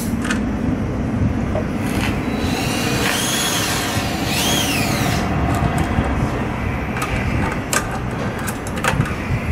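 Fasteners being worked off a metal panel with a 9 mm nut driver over a steady low rumble: two short squeaks, each rising then falling in pitch, about three and four and a half seconds in, then a few sharp clicks near the end.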